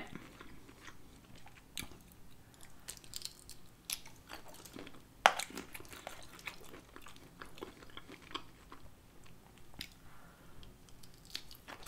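Faint close-miked chewing and small wet mouth clicks of a person eating cocktail shrimp, with a sharper click about five seconds in and a bite into a shrimp near the end.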